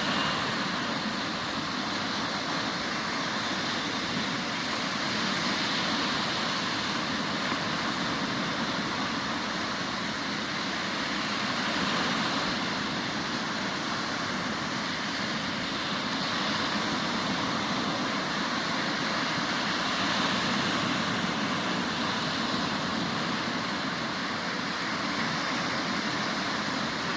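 Sea waves breaking and washing up the beach: a steady rush of surf that swells and eases every several seconds.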